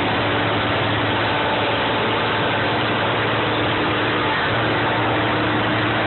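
M35A2 Deuce and a Half army truck's turbocharged multifuel diesel engine running steadily.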